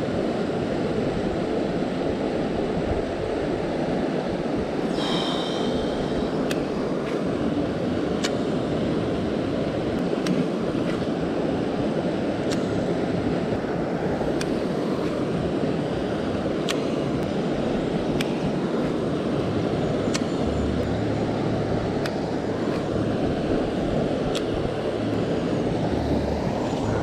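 Steady rush of river water running over a shallow rocky riffle, with scattered faint clicks and a short high chirp about five seconds in.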